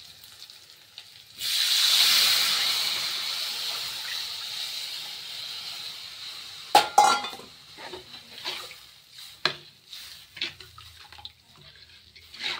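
Besan batter poured into a hot steel kadai of fried onion masala, hissing loudly as it hits the pan; the hiss starts suddenly and fades over several seconds. Then a few sharp metal clinks and scattered scrapes as a slotted steel spoon stirs in the kadai.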